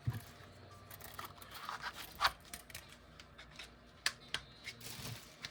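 Light clicks and scrapes of folding knives being handled, with a brief rubbing scrape about two seconds in.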